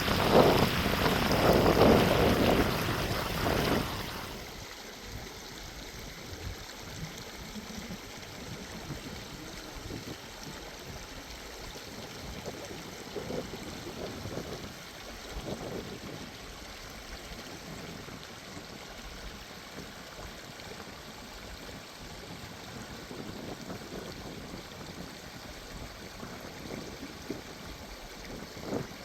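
Outdoor noise with no speech: loud gusts of wind on the microphone for about the first four seconds, then a quieter, steady rushing hiss of running water.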